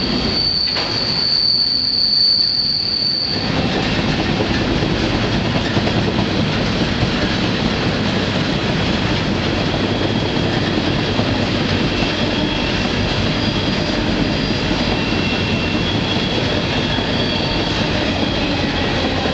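Loud, steady rolling noise of a moving freight train heard from aboard a car. A high, steady wheel squeal on the rails cuts off about three seconds in, and fainter squeals come and go later.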